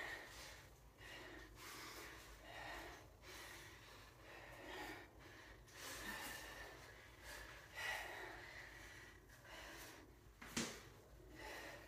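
A person breathing hard in and out in time with dumbbell squats and deadlifts, soft breaths about every second. A single sharp knock near the end.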